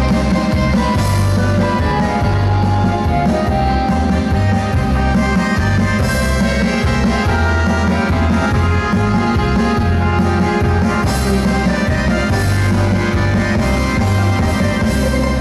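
Folk dance music playing loudly and continuously, a melody over a steady, regular low beat.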